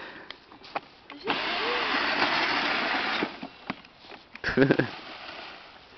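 Small electric ride-on vehicle's motor whirring as it drives over rough ground for about two seconds, starting about a second in. A short shout follows a little later.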